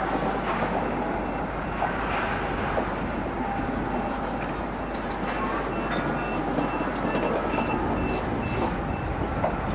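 InterCity sleeper coaches rolling slowly along the platform while being shunted: a steady rumble of wheels with scattered clicks and knocks. A faint high tone pulses on and off for a few seconds in the middle, and the low rumble grows near the end.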